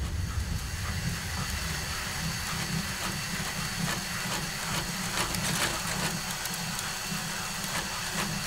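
Cordless drill running steadily, turning a spool to wind ABS 3D-printer filament onto it.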